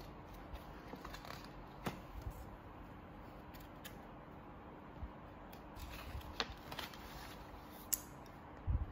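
Faint handling of a paperback picture book: light rustling and a handful of short, scattered clicks and taps as the book is held and its cover and pages are turned.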